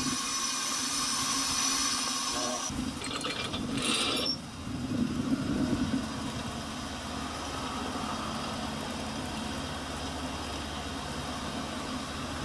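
Machinery running: a hissing, clattering mechanism, a short loud burst of noise about four seconds in, then an engine running steadily with a low hum.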